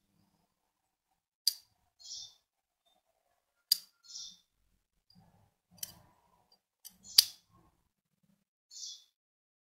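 Sharp metallic clicks of the old tire inflator's steel lever and its hinged pawl being worked by hand, about five clicks, the loudest about seven seconds in. A faint short bird chirp repeats about every two seconds.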